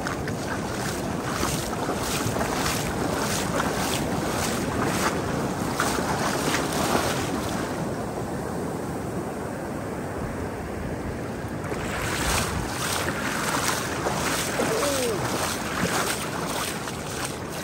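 Surf breaking and foamy wash running up the sand, with wind buffeting the microphone in irregular gusts.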